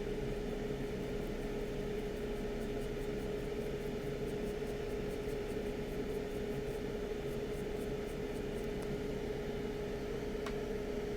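Steady hum of bench equipment with one constant mid-pitched tone, like a fan running, and faint light ticks a few times a second through most of it.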